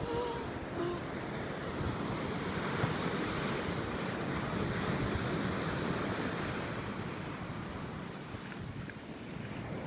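Steady rushing noise of wind buffeting the microphone outdoors.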